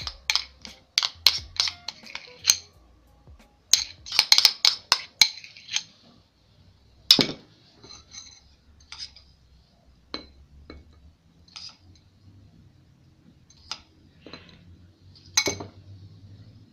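Metal spoon clinking against glass as cream is scooped from a glass bowl and spooned onto a trifle: quick runs of light taps in the first few seconds, then single clinks spread out, one sharper clink about seven seconds in.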